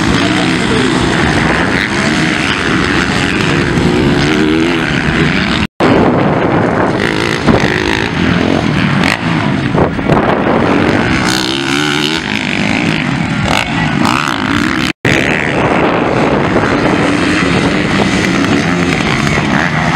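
Motocross dirt bike engines revving hard and easing off as the bikes race past on the track, pitch rising and falling with each pass. The sound cuts out completely for an instant twice.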